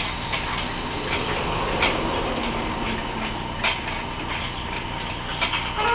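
Powered roller conveyor running, a wooden block riding along its steel rollers: a steady mechanical hiss with a few scattered clicks.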